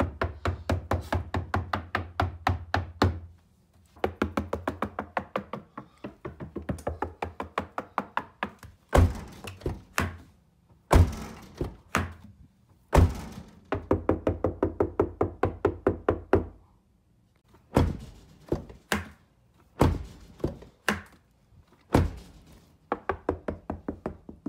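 Knuckles rapping and a fist thumping on the outer steel skin of a Subaru WRX door as a sound-deadening test: first on the untreated door, where runs of quick knocks each ring on, then on a door lined with sound-deadening mat, where single knocks come spaced apart and die away shorter.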